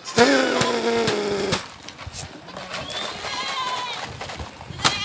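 Goats and kids bleating: a loud bleat in the first second and a half, sliding slightly down in pitch, then a higher-pitched bleat around three seconds in and a wavering one near the end.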